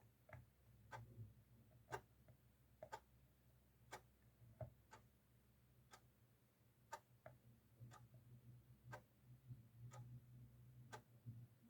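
Faint clock ticking steadily, about once a second, in an otherwise quiet room with a low hum.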